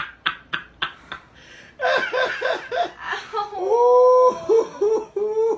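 Sharp hand claps or slaps, about three a second, stop a little over a second in. After a short pause comes laughing in quick repeated bursts, with one drawn-out high note in the middle.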